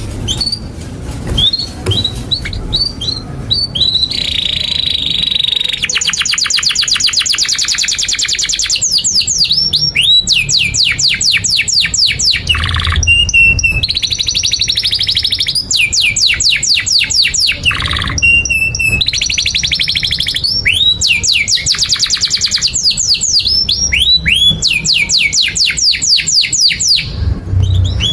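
Domestic canary singing a long, unbroken song of rapid trills: runs of quick falling chirps at about ten a second, broken up by short held buzzy notes.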